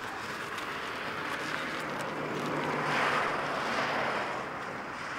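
A motor vehicle passing, its noise swelling to a peak about three seconds in and then fading.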